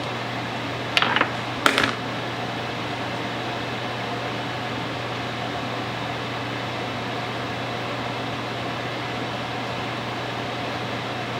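A steady electric hum with an even hiss, like a running fan or appliance. Two short, sharp clattering sounds come about a second in.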